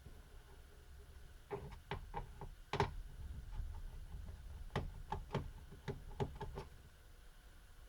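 Irregular light clicks and taps of a small screwdriver and tiny screws against a laptop's plastic base as the case screws are taken out. There are about a dozen, in a group starting about a second and a half in and another from about five seconds in, with the sharpest near the three-second mark.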